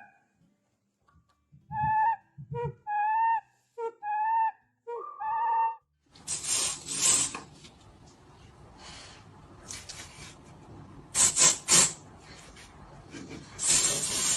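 An animal giving a series of about five short, pitched calls one after another. These are followed by rustling, scraping noise with several louder bursts.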